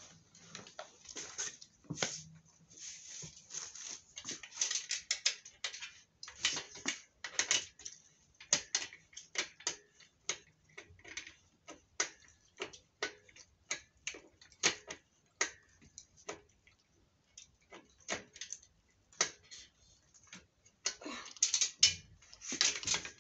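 Irregular clicks and light knocks, one or two a second, from a small workbench with a wooden top and black metal frame as it is worked on by hand, its fittings being tightened and the frame handled.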